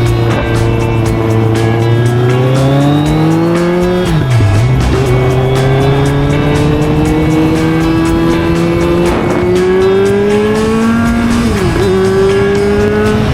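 Motorcycle engine pulling through the gears: it runs steady, then climbs in pitch, drops sharply at a gear change about four seconds in, climbs again for several seconds and drops at another shift near the end.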